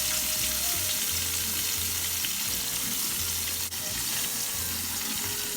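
Coated chicken pieces frying in hot oil, with a steady, dense sizzle.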